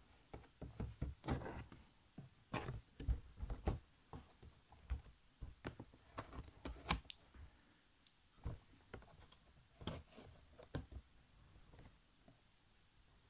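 Irregular clicks, taps and rustles of handheld handling close to the microphone, busiest in the first few seconds and thinning out near the end.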